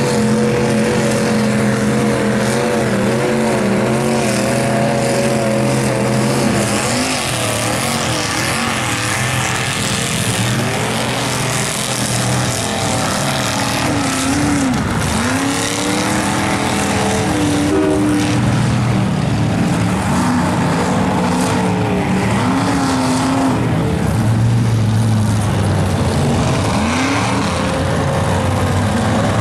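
Engines of lifted Chevy mega mud trucks revving hard, the pitch swinging up and down again and again, as their big tires churn through deep mud.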